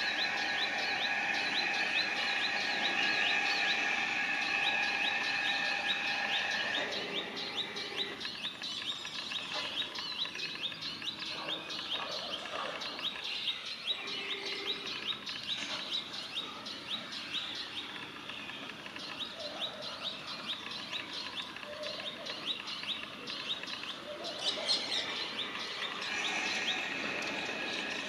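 Male Palestine sunbird giving its warning call: a rapid string of short, sharp, high calls repeated without a break. A steady background drone runs under it for the first several seconds and returns near the end.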